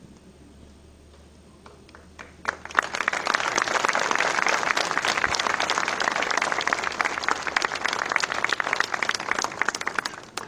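An audience applauding: a few claps about two seconds in, then steady applause that stops near the end.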